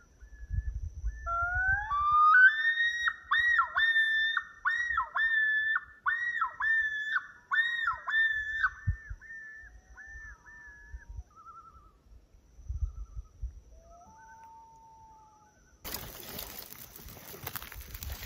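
A common loon yodelling: a rising opening note, then a long run of repeated ringing notes, each with a sharp dip in pitch, fading off after about nine seconds. Near the end a single held note is followed by wind and water noise.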